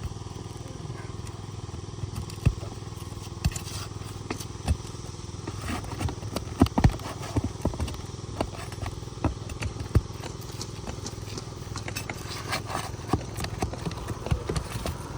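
Metal flat bar and roofing hammer working under asphalt shingles to free the nails: scattered clicks, knocks and scrapes, the loudest a couple of sharp knocks about six to seven seconds in, over a steady low rumble.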